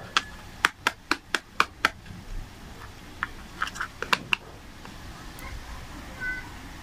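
Wax crayon and plastic toy knife on a plastic toy cutting board: a quick run of sharp clicks, about four a second for two seconds, then a few more clicks a second or so later as the knife cuts into the crayon.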